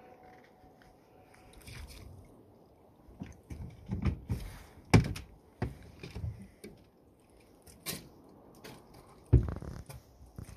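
A series of irregular knocks and thumps from handling gear and catch aboard a small boat. The loudest comes about five seconds in and another near the end, with smaller bumps between.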